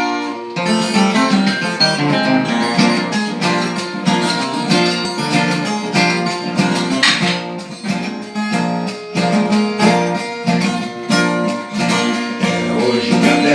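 Instrumental intro of a Brazilian sertaneja raiz song: a viola caipira and guitar playing a quick picked melody over strummed chords.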